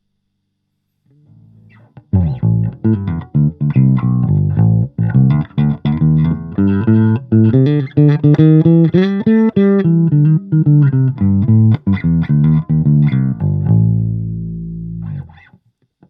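Electric bass guitar played through a Fender Rumble 25 bass amp: a quick run of plucked notes starting about two seconds in, ending on a held low note that fades and stops abruptly near the end.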